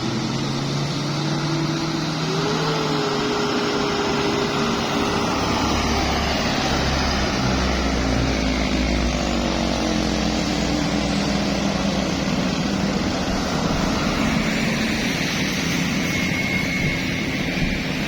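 Road traffic on an uphill bend: a large vehicle's engine pulling up the grade, its note rising a couple of seconds in and then sliding slowly down, with a deep rumble through the middle.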